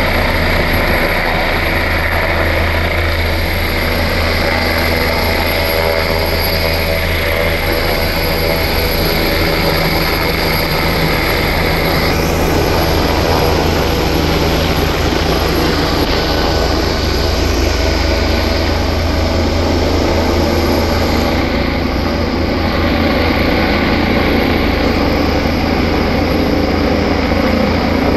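Air ambulance helicopter taking off and climbing away overhead, its rotor and engines making a loud, steady noise.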